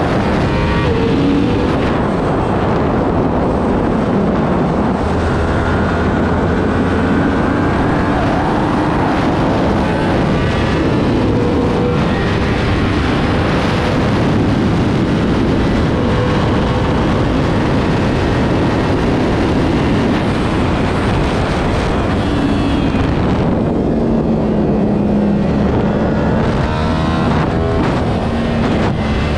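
Sport motorcycle engine at full racing pace, its pitch repeatedly climbing and falling as it is revved through the gears and eased off into corners, under a heavy rush of wind.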